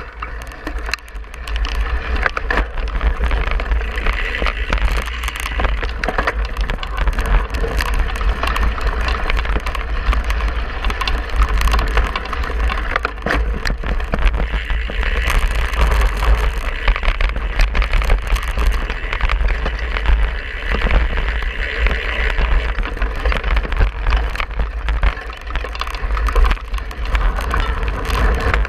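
Cyclocross bike ridden over bumpy grass and dirt, heard from a handlebar-mounted camera: continuous rattling and clattering of the bike and mount, with tyre noise and a low wind rumble on the microphone.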